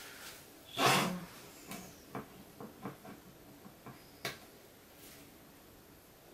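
Makeup pencil and cosmetic cases handled at a table: a short rustle about a second in, then a string of small clicks and taps, the sharpest just after four seconds in.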